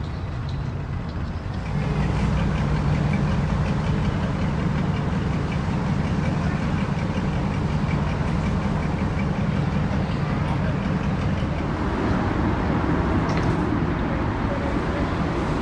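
Engines running steadily, stepping up in level about two seconds in and holding there, with voices faintly beneath.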